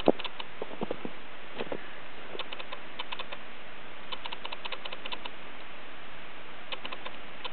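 Footsteps crunching through snow, each step a quick run of small crackles, over a steady hiss; a single sharp knock right at the start.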